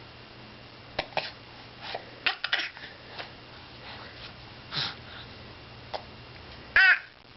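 A baby's small mouth clicks and breathy sounds while he mouths his toes, then one short, high vocal squeal near the end, the loudest sound.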